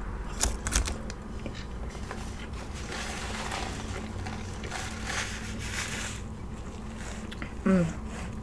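A person chewing food close to the microphone, with a few sharp mouth clicks about half a second in. Near the end comes a short, falling 'mm' of enjoyment.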